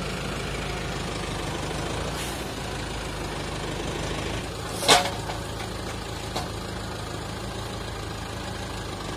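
Farmtrac 675DTN tractor engine running steadily while its front loader sets a wrapped silage bale onto a stacked trailer load, with one brief, sharp, loud sound about five seconds in and a faint click a little after.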